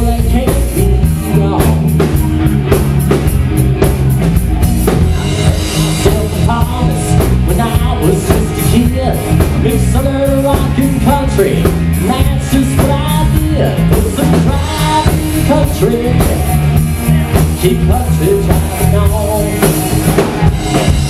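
Live country-rock band playing an instrumental stretch of the song: electric guitar carrying a lead line over electric bass and a drum kit.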